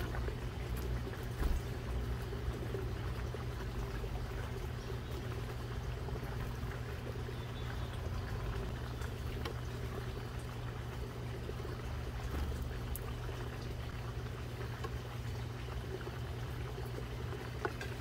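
Steady low outdoor background rumble, with a few faint short taps of a black-capped chickadee pecking seed on a wooden feeder tray.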